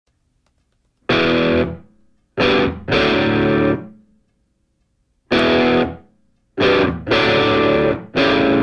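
Music: distorted electric guitar chords struck and held in separate stabs, with silent gaps between. The first comes about a second in, and about seven follow in all.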